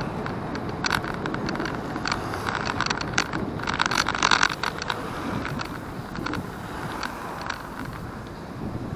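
Wind rushing over the microphone while moving along a road, with a clatter of clicks and rattles from bumps in the surface, densest and loudest about four seconds in.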